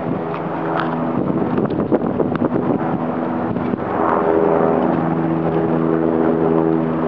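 A motor engine running steadily, with wind noise over the microphone.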